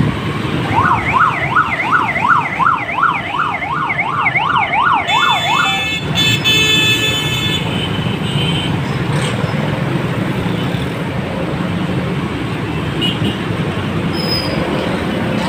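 Dense road traffic running, with engines and motorcycles. For the first five seconds an electronic siren sounds in a fast yelp, rising and falling about three times a second. Then a vehicle horn blares for about a second.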